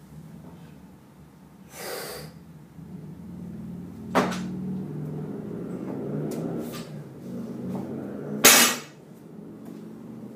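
Barbell snatches with an empty 45 lb bar: a short hiss about two seconds in and a sharp knock about four seconds in. The loudest sound is a clattering impact about eight and a half seconds in, as the bar is put down on the floor from overhead.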